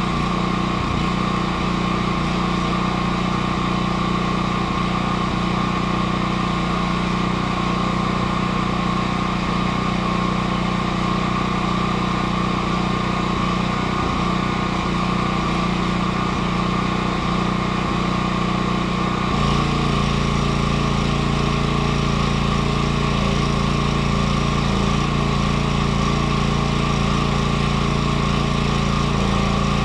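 A power tool's electric motor running steadily, its tone shifting about 19 seconds in.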